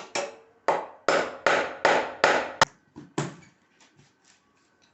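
Hammer blows, about eight sharp strikes at two to three a second, each with a short ring, then a few lighter taps near the end. Typical of hammering parts into place while assembling a sewing machine and its stand.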